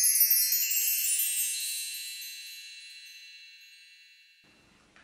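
Bright high chime sound effect: a quick run of chime notes rings on and fades away over about four seconds.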